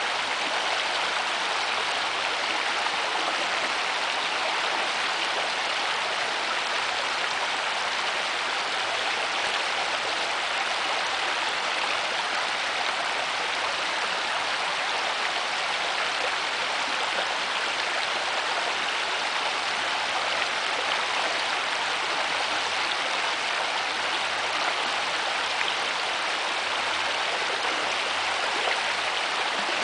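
Shallow creek running steadily over a rocky riffle: an even, unbroken rush of water.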